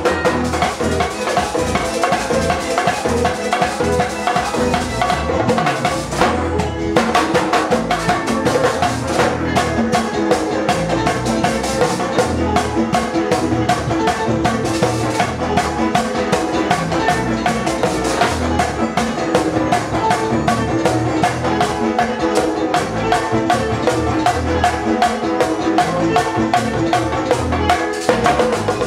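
A live Latin band plays an instrumental passage with a fast, steady beat: a metal güira scraping, drums struck with sticks, keyboard and guitar.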